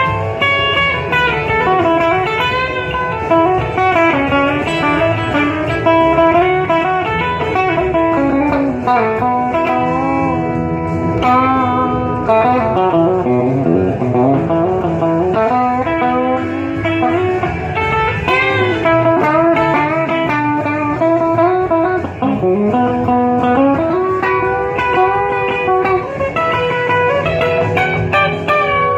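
Rockabilly electric guitar music: a lead guitar plays melodic runs with bent notes over a steady rhythm backing, with no singing.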